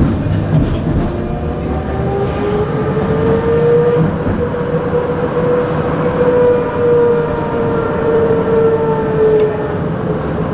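Electric tram running along its rails with a steady rumble, and a whine that rises in pitch over the first few seconds, holds, then falls again toward the end, as the tram speeds up and then slows.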